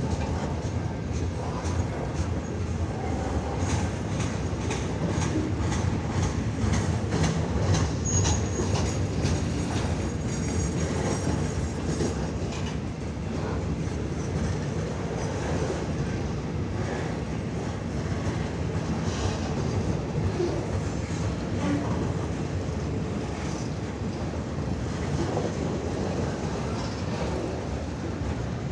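Freight train cars rolling past with a steady rumble and rapid clacking of wheels over the rails, with a thin, high wheel squeal around the middle.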